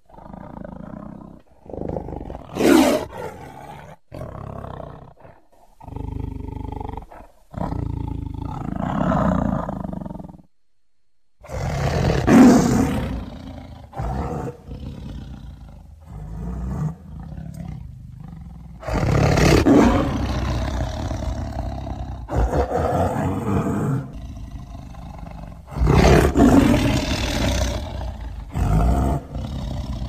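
Tiger roaring and growling in a string of separate calls, each starting and stopping abruptly. The loudest roars come about three seconds in, near the middle, and twice in the last third, with shorter growls between them.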